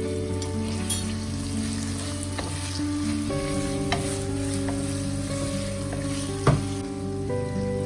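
Food sizzling in a frying pan as it is stirred, with a few sharp taps of a utensil on the pan, the loudest about six and a half seconds in. Background music plays throughout.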